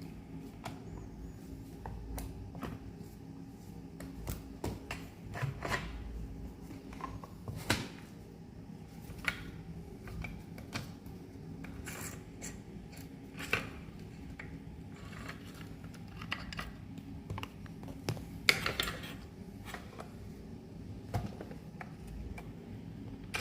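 Irregular metal clicks, scrapes and rubbing of parts being handled as a VFC MK20 SSR gas-blowback airsoft rifle is stripped by hand, over a faint steady hum.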